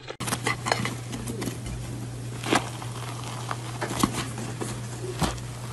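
Hands tearing open a soft chocolate cake: quiet crackling with a few sharper clicks, over a steady low hum.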